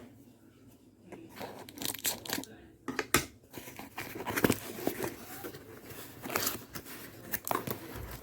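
Packaging being torn open and crinkled by hand: irregular rips and rustles with a few sharp clicks, the loudest about three and four and a half seconds in.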